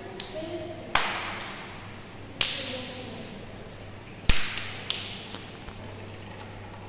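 A handful of sharp knocks or bangs at uneven intervals, each echoing briefly, the loudest a little past four seconds in.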